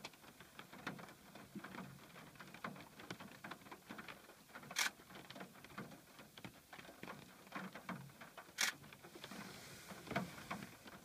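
Rain pattering in scattered drops on glass, with two louder taps about five and nine seconds in.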